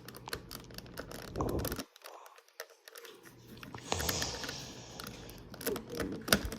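Irregular small plastic clicks and taps as loose Rubik's Cube pieces are handled and fitted back onto the cube, with a short rustling hiss about four seconds in.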